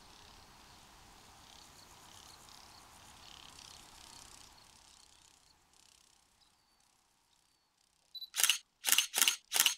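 Faint insect chirring fades out, and after a short silence a camera shutter fires in a quick run of about five clicks near the end.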